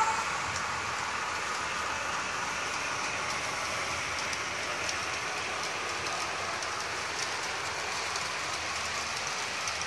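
HO scale model freight train running along the track: a steady rushing hiss of wheels and motor with faint scattered clicks.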